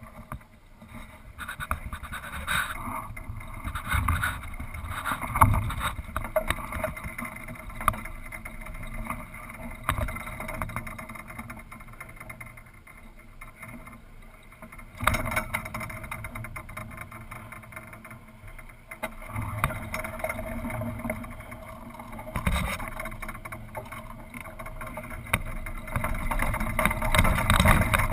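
Wind buffeting a camera mounted high on a small sailboat's mast, rising and falling in gusts, with scattered knocks and rattles from the mast and rigging.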